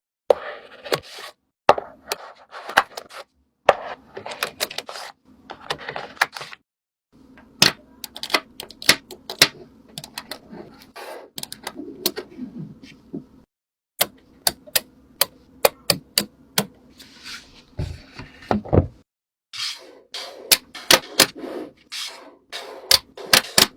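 Quick, irregular clicks and taps of small objects being handled and worked, in short bursts broken by sudden silent gaps.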